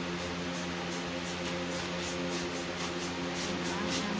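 Steady mechanical hum with a low drone and even hiss, pulsing faintly about four or five times a second: the background of a running machine in a small room.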